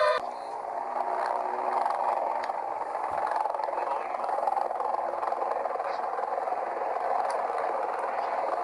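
An electronic alert tone, falling slightly in pitch, cuts off just as it begins, leaving a steady static-like hiss with faint crackles.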